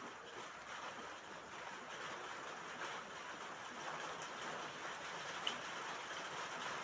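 Rain falling on a roof: a steady, even patter. A single brief high chirp sounds about five and a half seconds in.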